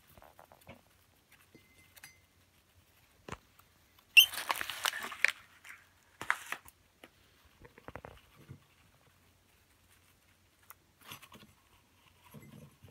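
Blue masked lovebird handling a balled-up tissue on a wooden table: scattered light taps and scratches from its beak and feet, with a louder burst of crinkly paper rustling about four seconds in that lasts over a second, and a few shorter rustles later.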